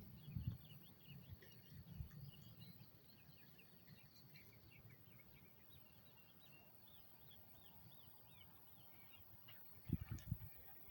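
Faint outdoor ambience: distant small birds chirping in quick repeated notes over a thin steady high insect drone, with a few low bumps near the end.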